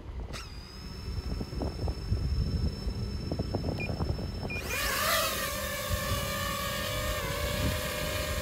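DJI FPV drone starting up: a faint high whine and two short beeps, then a little over halfway through its motors spin up with a quick rise in pitch and settle into a steady propeller hum at idle.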